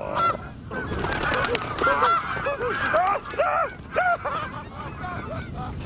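Geese honking: many short honks, several overlapping, each rising and falling in pitch.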